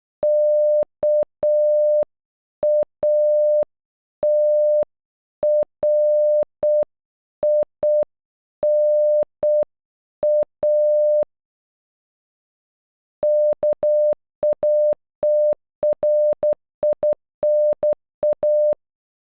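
Morse code beeps in a single steady mid-pitched tone spelling KATRINA (-.- .- - .-. .. -. .-). It is sent slowly first, then after a pause of about two seconds it is sent again at about twice the speed.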